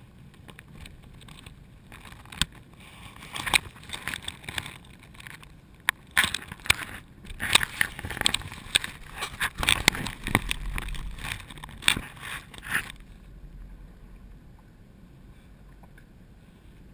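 Fishing net and gear rubbing and knocking against the GoPro's waterproof housing. It comes as a dense flurry of sharp clicks, knocks and scrapes from about two seconds in, then dies down to a low even background about thirteen seconds in.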